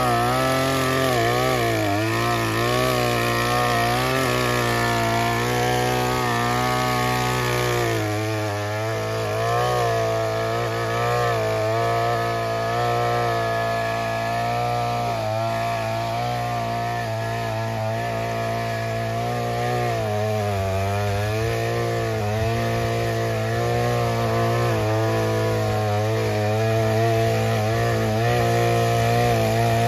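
Small petrol engine of a handheld brush cutter with a tilling head running hard and continuously. Its pitch wavers, dipping and recovering several times as the head bites into the grass.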